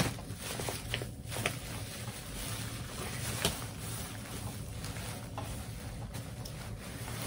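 Hands rummaging through a bag of yarn skeins: soft rustling with a few light clicks and taps, over a steady low hum.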